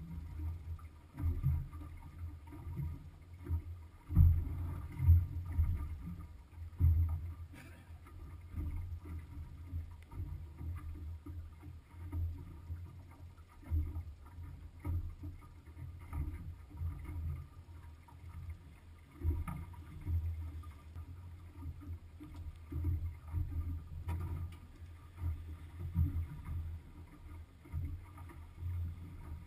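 Water slapping against the hull of a small aluminium boat rocking on a chop: irregular low thumps and knocks every second or so.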